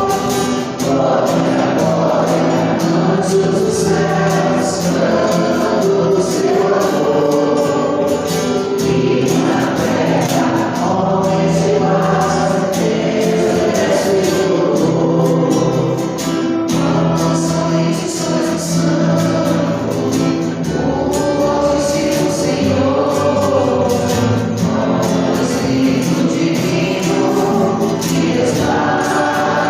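Gospel song sung by a choir with musical accompaniment.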